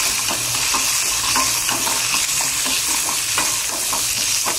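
Chana dal and urad dal sizzling steadily in hot oil in a metal kadai, with irregular light clicks of a spoon stirring and scraping the pan as the dal is fried until brown.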